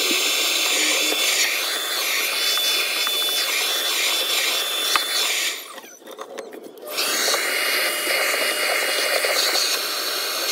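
Deerma handheld stick vacuum cleaner running, a steady rushing hiss with a thin high motor whine as its floor brush is pushed over a wooden floor. The sound drops away for about a second near the middle, then comes back with the whine slightly lower in pitch.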